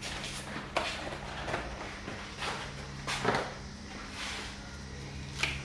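Knocks and clatter of tools and things being picked up and put down at a workbench, with sharp knocks about a second in, past three seconds and near the end, over a steady low hum.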